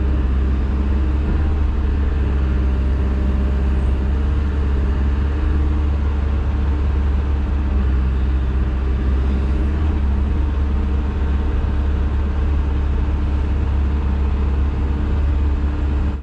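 Hyundai excavator's diesel engine and hydraulics running at a steady speed, heard from inside the operator's cab as a constant low drone.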